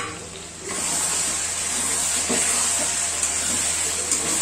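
Chicken liver and gizzard in masala sizzling in a hot metal kadai as it is stirred with a spatula, the fry stage of the curry. The sizzle gets louder about a second in and then holds steady, with a few light spatula scrapes.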